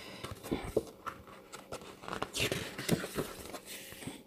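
Sheets of a paper pad being turned and handled: soft paper rustling with scattered light taps and a brief swish a little past halfway.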